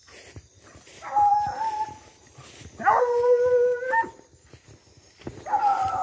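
Hunting dog baying in long, drawn-out howls, three in turn, the middle one lower: a hound giving tongue while chasing a paca.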